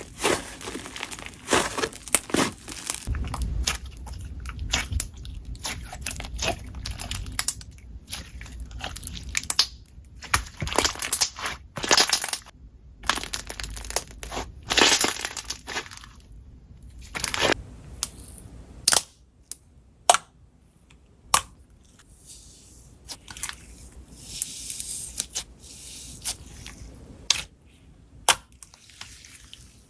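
Slime being squished and pressed by hand, making irregular crackling, popping and crunching sounds that grow sparser in the second half.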